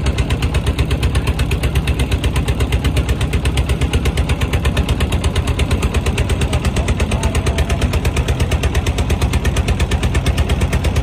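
A boat engine running steadily, with an even, rapid chugging of about seven beats a second and a strong low thump to each beat.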